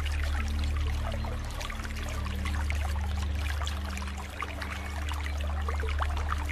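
River water lapping and trickling against a rock-lined bank, with the steady rush of a wide, fast-flowing river behind it.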